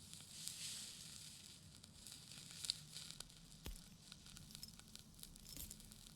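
Faint crackling and rustling film sound effects, with scattered small clicks and ticks; the sharpest click comes a little under three seconds in.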